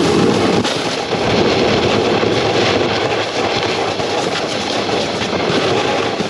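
Snowboard base sliding over packed snow, a steady grainy scraping rumble carried through the board itself.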